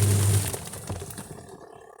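Washing machine motor's steady hum cuts off about half a second in, and the spinning drum winds down, its noise fading over the next second and a half.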